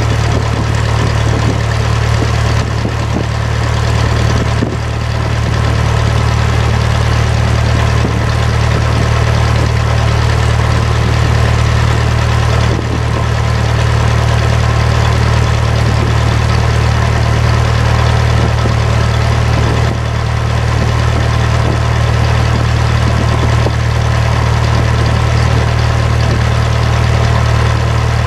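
Cessna 172's piston engine and propeller running steadily, heard as a loud, even drone inside the cockpit, with a few brief slight dips in level.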